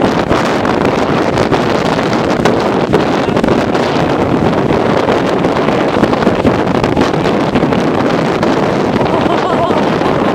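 Strong wind blowing hard across the microphone, a loud, steady rushing noise with constant buffeting.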